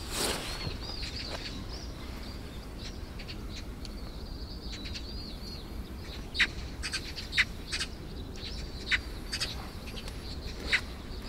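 Birds calling at dawn, magpies among them: quick high chirps repeat throughout, with louder short harsh calls several times from about six seconds in.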